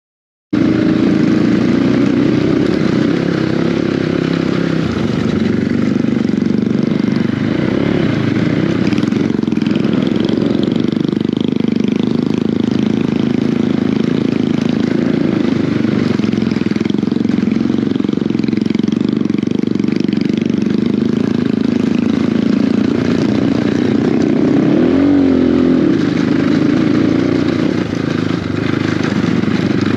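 Dirt bike engine running at low speed on a rough trail, its note rising and falling with the throttle, with a quick waver in pitch about 25 seconds in.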